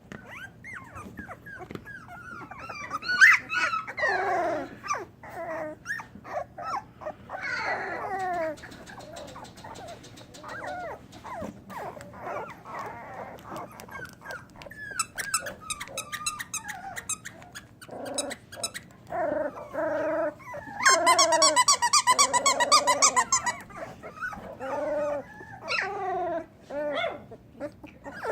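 A litter of young puppies whining and yelping in many short cries that fall in pitch, with a long, loud squeal about three-quarters of the way through.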